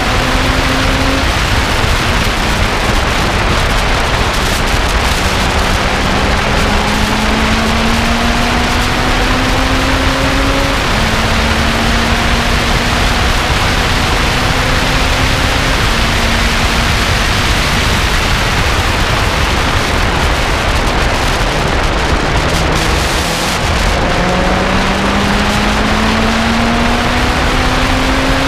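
Lotus sports car at speed on a race track, heard from onboard: a steady rush of wind and road noise, with the engine's note climbing slowly in pitch under acceleration and falling back a few times at shifts or lifts. Past the middle the engine note fades briefly under the wind noise, then climbs again near the end.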